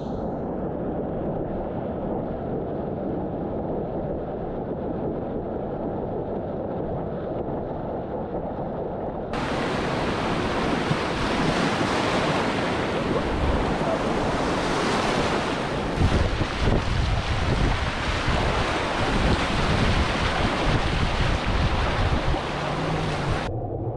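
Ocean surf rushing and breaking around the surfboards, with wind buffeting the microphone. It turns louder and brighter about nine and a half seconds in, with gusty low rumbles through the later part.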